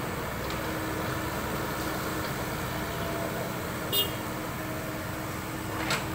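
Compact crawler excavator's diesel engine running steadily as the hydraulic arm digs and swings the bucket. There is a sharp metallic clank about four seconds in and another near the end.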